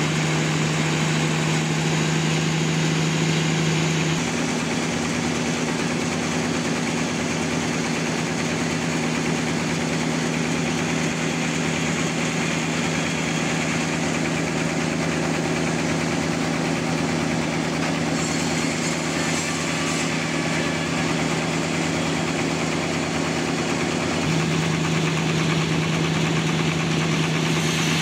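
Sawmill engine running steadily with a constant hum; its pitch steps up about four seconds in and drops back again about four seconds before the end.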